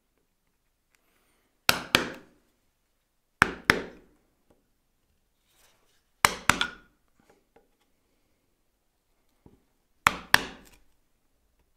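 Bench chisel driven into a softwood board by blows on its handle, chopping out wood: four pairs of sharp knocks, the two blows in each pair about a quarter second apart.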